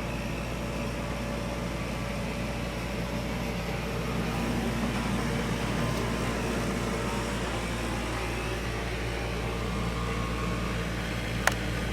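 Steady machine hum with a constant low drone, with a single sharp click near the end.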